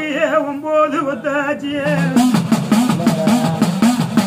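A man sings, and about two seconds in the singing gives way to the udukkai, a hand-held hourglass drum, played in a quick even rhythm of about three strokes a second. Each stroke bends in pitch as the drum's lacing is squeezed.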